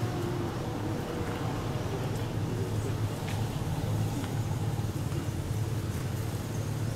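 Steady low background rumble, with faint wavering tones above it.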